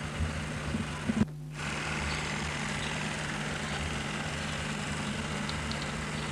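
Steady hiss and low hum of an old home-movie soundtrack with no clear sound of its own. A few knocks about a second in are followed by a brief dropout where the sound cuts out, then the steady noise returns.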